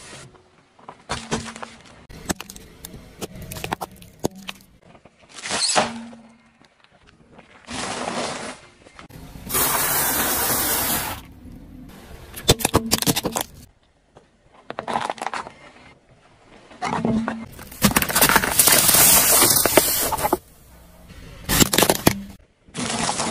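Car tyre rolling over and crushing objects on asphalt, in a run of separate short episodes: cracks, crunches and snapping, with two longer stretches of steady rushing noise, the loudest near the middle and about three-quarters of the way through.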